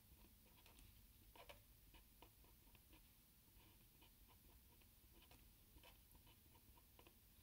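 Faint strokes of a felt-tip marker on paper, short scratches at irregular moments as letters and branch lines are drawn.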